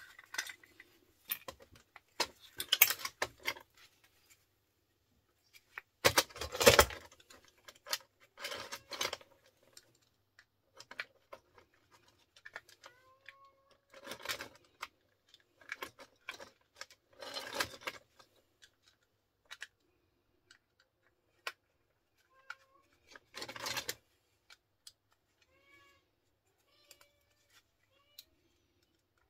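Bursts of clinking and rattling as small metal and plastic parts of old plugs and sockets are handled and pried apart with a screwdriver, loudest about six seconds in. A cat meows faintly a few times in the background.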